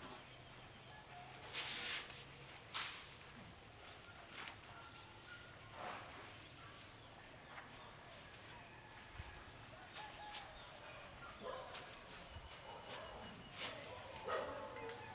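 Faint ambience around Asian elephants: a dozen scattered brief, soft rustling noises over a steady low hiss, with a short faint wavering whine near the end.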